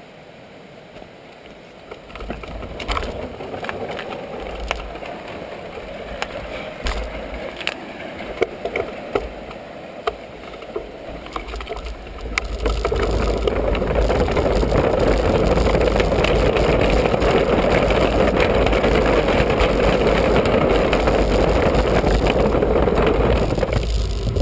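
Mountain bike ride on a helmet camera: the bike rattling and knocking over rough trail, with wind rumbling on the microphone. About halfway in a loud, steady rush of wind and fast-running river water takes over and holds.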